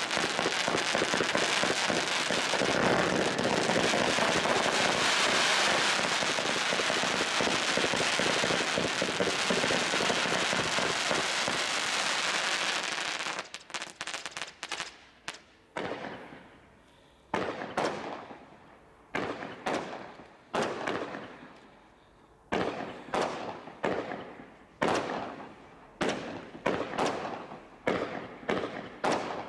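Consumer firework barrages from a Bright Star Desert Storm Crate barrage pack firing: a dense, unbroken crackle of rapid reports for the first half, then, from about halfway, separate bangs roughly every second or so, each trailing off.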